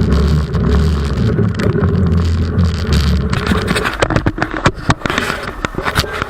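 A vehicle engine running steadily, with a string of sharp knocks and rattles in the second half.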